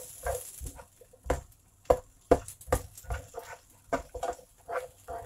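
A plastic spatula knocking and scraping against a nonstick frying pan as chopped white onion is stirred in oil, in uneven strokes about twice a second.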